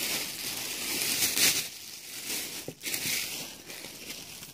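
Plastic packaging crinkling and rustling as shopping items are picked up and moved around, with small crackles.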